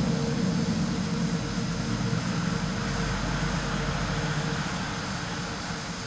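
Low rumble of rolling thunder slowly dying away, heard from indoors through a window pane.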